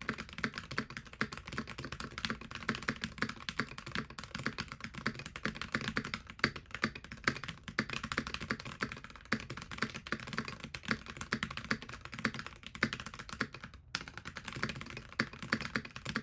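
Fast typing on a Keychron V1 mechanical keyboard: a dense, unbroken run of keystroke clacks, with a brief pause about 14 seconds in.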